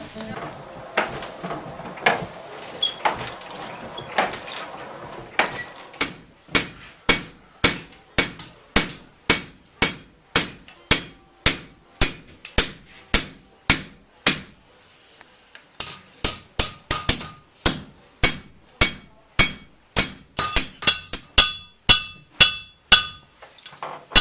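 Blacksmith's hammer striking hot iron on an anvil. The first five seconds hold a hiss with a few scattered knocks. Then come steady blows about two a second, a short pause, and faster blows, some in quick pairs, each followed by a bright ring from the anvil.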